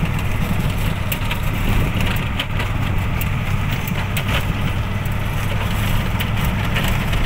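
Steady low rumble of a vehicle on the move, with scattered light clicks and knocks.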